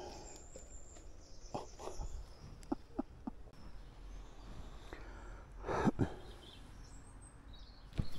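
An animal call sounding twice in quick succession near the middle, over a faint outdoor background with a few short clicks and high chirps.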